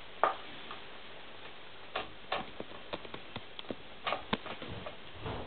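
Guinea pig chewing and biting into a lettuce leaf: irregular small crunches and clicks, one sharper crunch just after the start.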